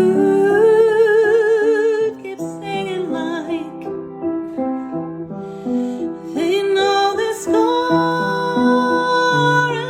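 A woman singing with piano accompaniment: a long held note with vibrato at the start, a couple of seconds of piano alone, then another sung phrase over the piano.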